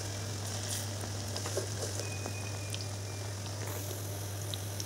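Batter-coated potato pakoras deep-frying in hot oil in a karahi: a steady sizzle with scattered small crackles.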